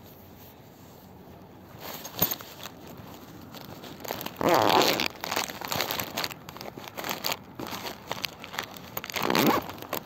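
Rustling and handling noises that start about two seconds in, with two louder noisy bursts of about half a second each, near the middle and near the end.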